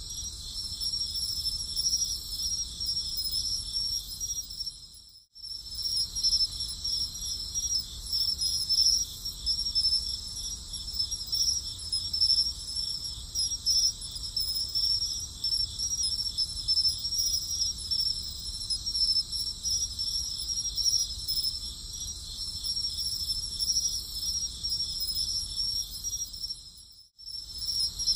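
Steady chorus of night insects chirping in fast, high trills. It cuts out briefly about five seconds in and again about a second before the end.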